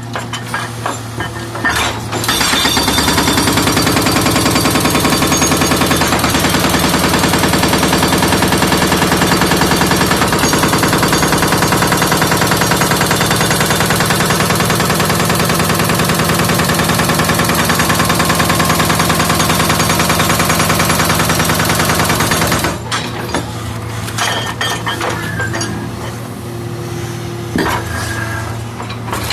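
Backhoe's hydraulic breaker hammering in fast, even blows over the backhoe's running engine. The hammering starts about two seconds in and stops about six seconds before the end, leaving the engine running on its own.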